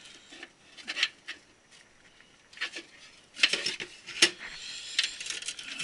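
Hands handling server parts and cables: scattered clicks and knocks with rustling, the sharpest click about four seconds in.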